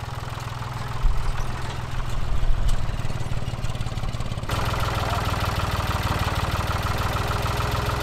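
Ford farm tractor engine idling with a steady low running. About halfway through, the sound changes abruptly and a higher steady hum joins it.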